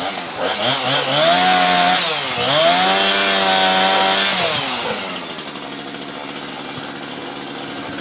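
Chainsaw cutting tree limbs. It revs up about half a second in, dips briefly near the middle and revs up again, then drops back a little after four seconds.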